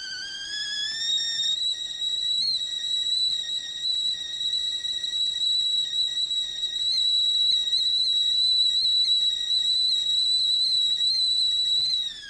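Kettle whistling at the boil: a loud, steady high-pitched whistle that climbs in pitch over the first second or two and then holds. It drops in pitch and cuts off right at the end.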